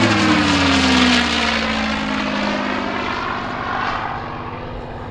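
P-51 Mustang's Packard V-1650-7 Merlin V-12 passing overhead. Its engine note glides down in pitch as it goes by and slowly fades.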